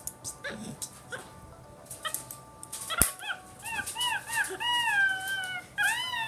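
Capuchin monkey giving a run of high, arching whistle-like peeps from about three seconds in, several short ones, then a longer falling call and one more near the end. Before that, light clicks and one sharp snap as the metal kiss-lock clasp of a leather coin purse is worked.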